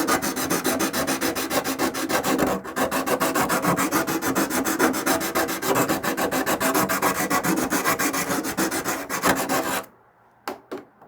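Hand sanding inside a tight plastic threaded opening, enlarging it so a fitting will thread in. Rapid, even rasping strokes stop about ten seconds in, followed by a few light clicks.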